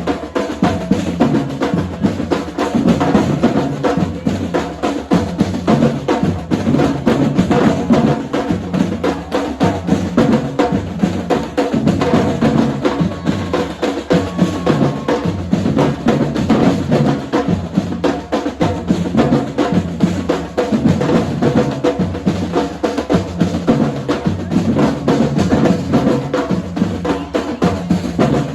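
Brazilian-style percussion drum line playing a steady, dense groove, with bass drums and snare drums striking together without a break.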